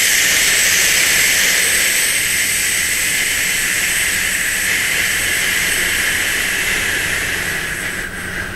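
A person breathing out a long, steady 'shhh' hiss: the qigong liver healing sound, sustained on one breath and fading out near the end.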